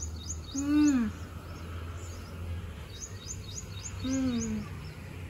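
A person's closed-mouth 'mmm' of tasting food, heard twice, each a half-second tone that rises slightly then falls, about a second in and again about four seconds in. Small birds chirp behind it in quick runs of high notes.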